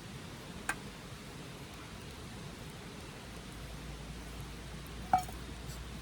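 Steady hiss of rain, with two sharp clinks: a light one under a second in and a louder, briefly ringing one near the end.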